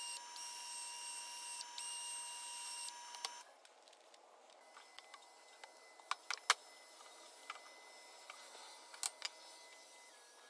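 Power sanding of a wooden bowl on the lathe: a drill-driven sanding disc with a steady high motor whine, which stops about three seconds in. After that only a few light clicks and taps.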